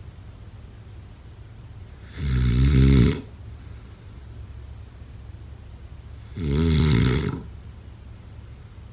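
A person snoring: two loud, rattling snores, each about a second long, some four seconds apart.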